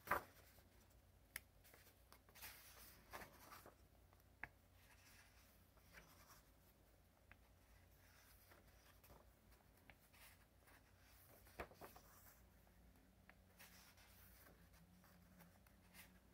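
Faint paper handling as sketchbook pages are turned and smoothed flat by hand: soft rustles of the sheets with a few light flicks and taps, the sharpest one at the very start.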